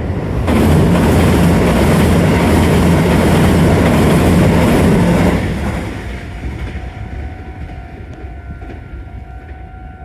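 A Meitetsu Nagoya Main Line train passing over the level crossing. The rumble and clatter of its wheels start abruptly about half a second in, hold steady for about five seconds, then die away.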